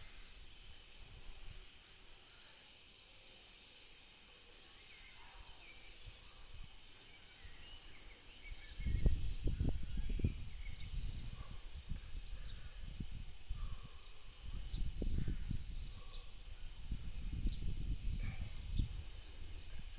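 Outdoor ambience: faint, scattered high chirps, with low rumbling gusts, like wind on the microphone, starting about nine seconds in.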